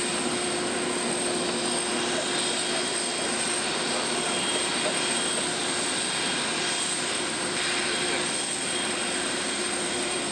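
Antonov An-225 Mriya's six turbofan jet engines running steadily as the aircraft taxis: a dense, even rush of engine noise with a steady high whine and a lower hum.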